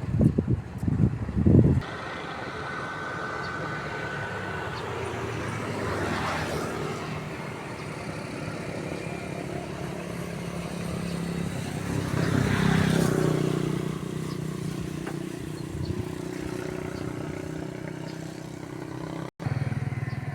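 Loud low buffeting for the first two seconds, then a small engine running steadily with a mechanical hum. The hum swells twice, more strongly about two-thirds of the way through, as the engine comes closer and moves away.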